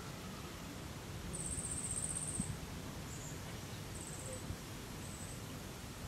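Steady outdoor background hiss with a very high-pitched, fast-pulsing animal trill, one lasting about a second, then three shorter bursts of the same call.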